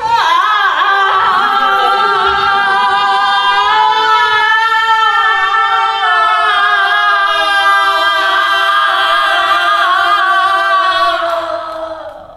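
Unaccompanied singing: one long held vocal note, wavering in pitch at first, then steady, fading out about eleven seconds in.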